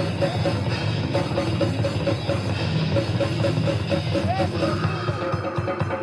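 Death metal band playing live: a dense, loud wall of guitars and drums, with rapid drum strokes coming forward near the end.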